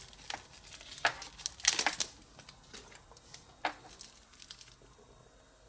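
Crinkling and rustling of plastic wrapping being handled around a wristwatch, in a few short bursts, the loudest about two seconds in, dying away near the end.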